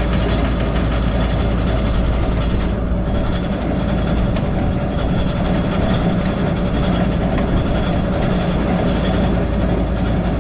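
A heavy vehicle engine running steadily as the machine travels, with a constant low hum and rattling noise over it. The higher hiss eases off about three seconds in.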